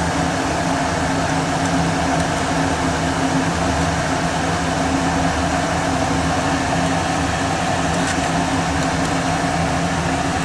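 Steady hum of a fan or appliance motor, holding several fixed tones at an even level, with a couple of faint clicks near the end.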